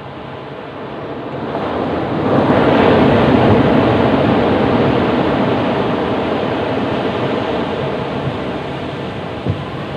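Ocean surf breaking on a beach: the wash swells to a peak about two to three seconds in, then slowly ebbs away. A small knock sounds near the end.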